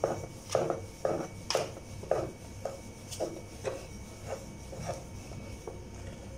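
Wooden rolling pin rolling chapati dough back and forth on a plastic cutting board: a rhythmic run of knocks, about two a second, louder in the first two seconds and softer after.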